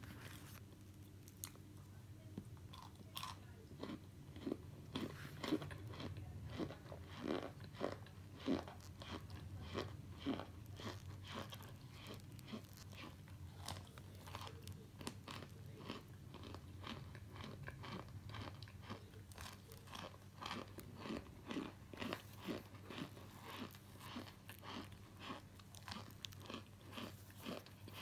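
Someone chewing chunks of hard-packed starch: irregular dry crunches, a few a second, louder in the first half.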